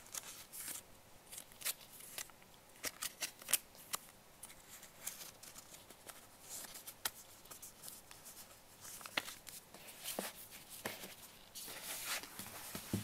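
Paper booklets and a cardboard watch box being handled: soft rustles with scattered light taps and clicks.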